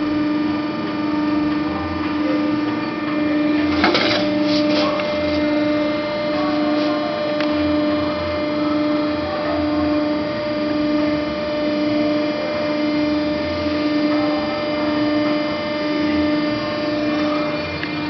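Haco TSX CNC shear running, its hydraulic power unit humming steadily with an even pulse about once a second. A brief metallic clatter comes about four seconds in.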